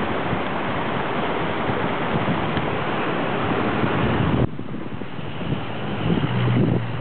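Floodwater rushing, a dense steady noise. About four and a half seconds in it drops off abruptly to a quieter rush, with wind buffeting the microphone in low rumbling gusts.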